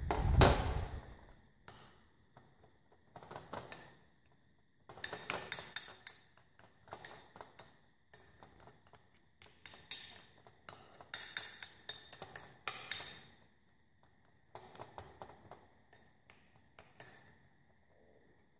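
Metal spoon stirring and scraping in a small ceramic bowl, clinking against its sides in bursts of quick taps with short pauses between. A louder dull handling noise comes right at the start.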